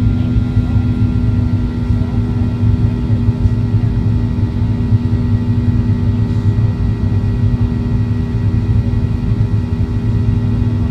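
Cabin noise of a Boeing 737-400 climbing after takeoff: the steady drone of its CFM56 turbofan engines, a low rumble with a constant hum.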